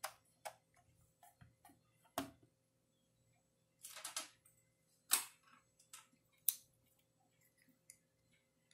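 Light, sharp clicks of a clamp meter's plastic rotary selector being turned in the first couple of seconds, then a brief clatter and two louder separate clicks of handling around the bench.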